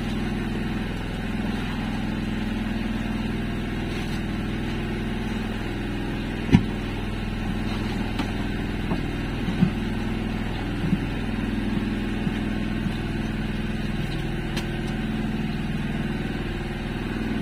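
An engine running steadily with a low, even hum, with one sharp knock about six and a half seconds in and a few lighter clicks after it.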